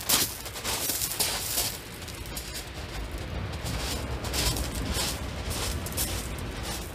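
Wind buffeting the microphone and surf washing onto a shingle beach, with hissy swells that come and go. A short, loud rush right at the start.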